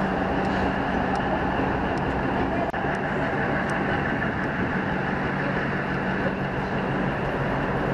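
Diesel engine of an ICF-built DEMU (diesel-electric multiple unit) power car running with a steady drone while the train stands ready for departure.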